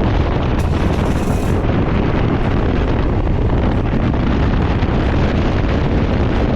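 Strong wind buffeting the microphone on a moving Can-Am Ryker three-wheeler in wind and rain: a loud, steady, deep rumble, with a brief hiss about a second in.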